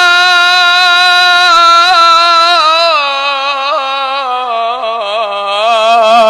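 A male Quran reciter chanting in the melodic mujawwad style, holding one long sung vowel. The note is steady at first, then from about halfway steps down in pitch with quick wavering ornaments.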